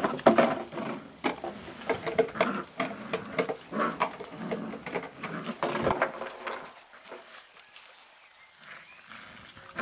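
Flat-coated retriever puppies, about five weeks old, growling in short bursts as they wrestle and tug at a cloth in play. The growling dies down about seven seconds in.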